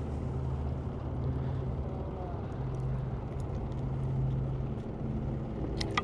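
Steady low drone of a motor running, with a few light clicks near the end.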